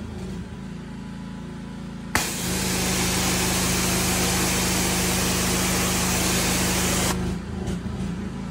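Pressure washer running steadily with a low motor hum. About two seconds in the trigger is squeezed and the water jet hisses loudly against the boat's canopy for about five seconds, then it is released and only the motor hum is left.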